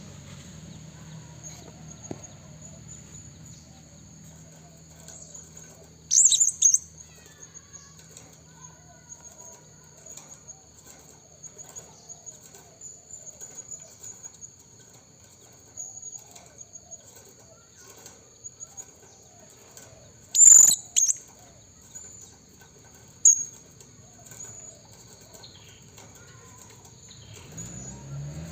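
Blue-crowned hanging parrot (serindit) calling: a few loud, sharp, high-pitched calls about 6 s, 20 s and 23 s in, over a continuous thin high-pitched trill.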